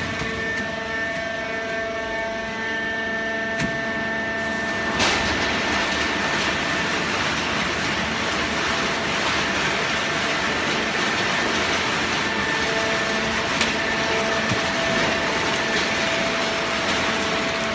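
Hydraulic waste paper baling press running: a steady machine whine of several tones over a mechanical rush. About five seconds in there is a click, and the rush grows louder.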